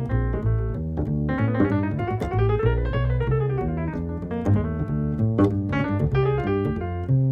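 Instrumental jazz: a piano solo over bass, with a quick run that climbs and then falls back down about two seconds in.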